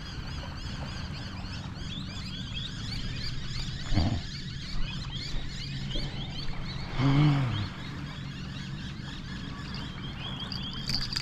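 Lakeside outdoor ambience: many quick high chirps repeat throughout over a steady low hum, with a short thump about four seconds in and a brief low call about seven seconds in.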